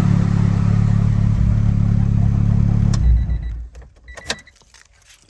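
Turbocharged Honda Civic engine running steadily at idle with the rattly noise the owner calls "not great" and has not yet traced, then switched off about three seconds in. A few light metallic clicks and jingles follow.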